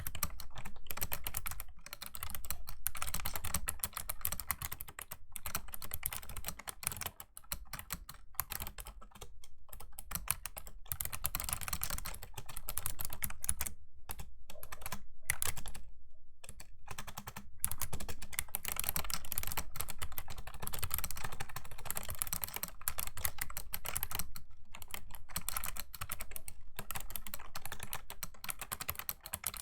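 Clicky key presses on a Razer Ornata Chroma V2 mecha-membrane keyboard, typed in fast continuous runs with a couple of brief pauses about halfway through.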